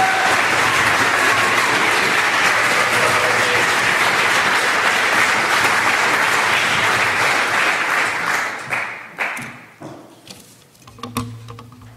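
Audience applauding, fading out about three quarters of the way through, followed by a few soft knocks.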